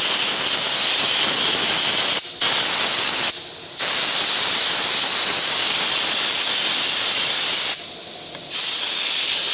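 High-pressure spray gun hissing loudly in long bursts while cleaning an engine bay. It cuts off briefly three times as the trigger is released.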